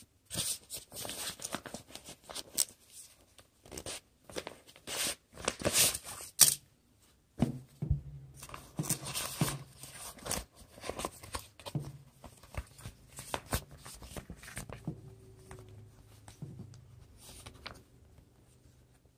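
Clear plastic packaging bag crinkling and rustling as it is opened and handled. The sharp crackles come in quick irregular bursts, loudest in the first seven seconds, then give way to softer, sparser handling noise.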